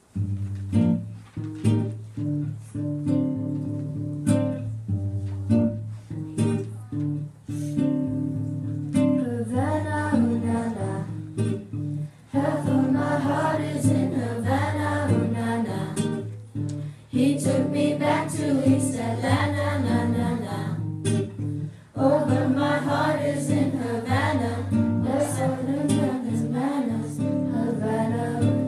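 Acoustic guitar strumming a pop song, solo at first; young girls' voices join in singing about ten seconds in and carry on over the guitar.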